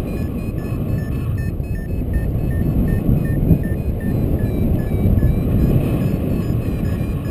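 Loud wind rushing over the microphone in flight under a paraglider. A variometer beeps faintly through it in short, quickly repeating tones, the broken beeping a vario gives while the glider is climbing in lift.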